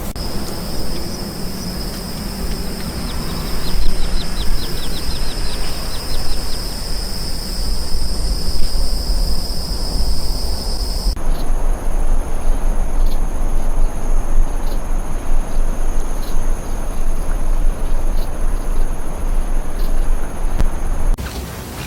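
Outdoor nature ambience dominated by a steady, high-pitched insect drone, like crickets or cicadas, which changes abruptly about halfway through to a higher, two-toned insect drone. A quick run of short bird chirps sounds a few seconds in, over a constant low rumble.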